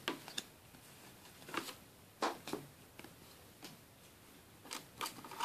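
Faint handling noise of Yu-Gi-Oh trading cards and their cardboard display box: a handful of short taps and rustles, spaced a second or so apart.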